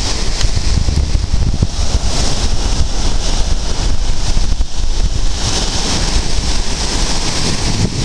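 Sea waves surging and breaking in foam against coastal rocks, with strong wind buffeting the microphone in a loud, continuous rumble.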